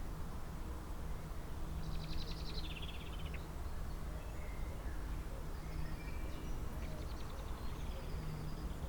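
Wild songbirds singing: a fast descending trill about two seconds in, scattered chirps, and a second fainter trill around seven seconds, over a low steady hum.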